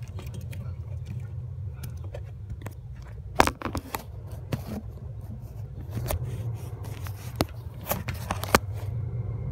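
Hands handling a vehicle wiring harness and plastic connectors: scattered clicks, scrapes and rustles, the sharpest click about three and a half seconds in, over a steady low hum.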